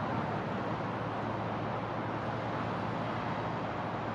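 Steady background noise: an even hiss with a low hum underneath.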